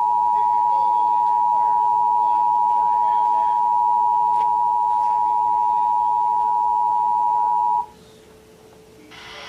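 Emergency Alert System attention signal: the two-tone 853 and 960 Hz alarm held as one steady, loud tone for about eight seconds, then cut off abruptly. It is the signal that a severe thunderstorm warning is about to be read. After a second of near quiet, a hiss rises near the end.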